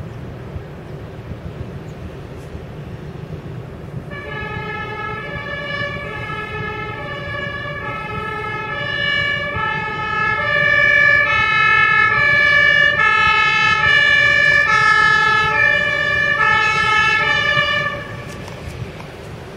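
Two-tone German emergency siren (Martinshorn) on the fire brigade's turnout convoy, alternating between a high and a low note. It comes in about four seconds in, grows louder as the vehicles come closer, and cuts off suddenly near the end, over a steady low rumble of engines and traffic.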